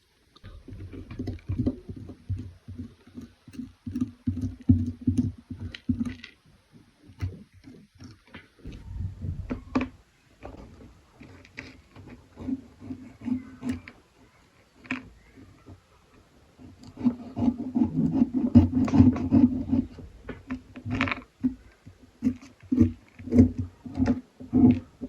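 Workshop handling of old rusty steel pliers: irregular metal knocks, clicks and rattles, several a second, with a denser run of quick knocks about two-thirds of the way through.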